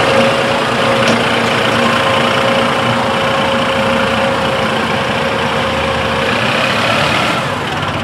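Massey Ferguson 2607 tractor's diesel engine running steadily as the tractor drives over soft, muddy ground, growing a little quieter near the end as it moves away.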